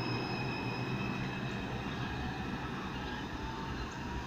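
New York City Subway train pulling out and moving away: a rumble of wheels on the rails with a steady high whine on top, slowly growing quieter as it recedes.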